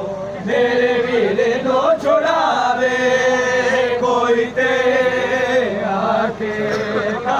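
Men's voices chanting a Punjabi noha lament, with long held notes in several drawn-out phrases.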